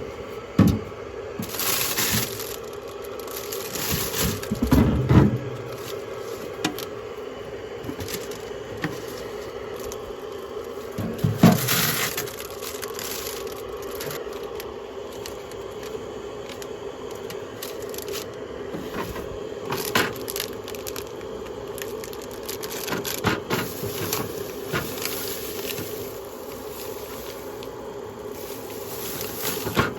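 Kitchen handling sounds during food preparation: scattered knocks, scrapes and crinkling, with louder clatters a few times, over a steady hum.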